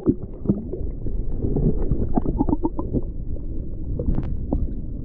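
Muffled underwater sound from a submerged camera: a steady low rumble of moving water with scattered small clicks and knocks, a quick run of them about two seconds in.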